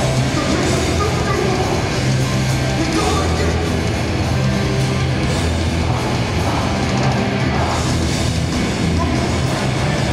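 Hardcore punk band playing live at full volume: distorted electric guitars and bass holding heavy low notes over drums, picked up loud and close by a handheld recorder in the crowd.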